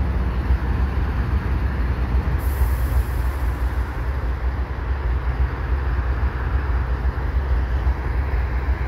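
GE ES44 diesel-electric locomotive's V12 diesel engine running with a steady low rumble.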